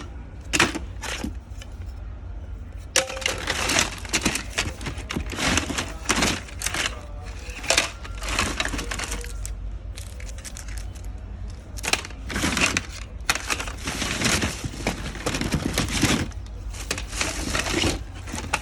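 Hands rummaging through a box of discarded mobile phones: irregular bursts of rustling and clattering of plastic handsets, with a few sharp clicks at the start, over a steady low hum.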